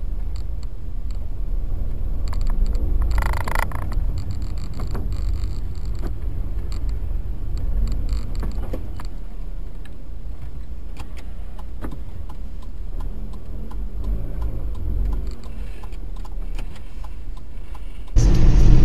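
Steady low rumble of a moving car's engine and tyres on the road, with scattered light clicks and a brief louder noisy burst about three seconds in.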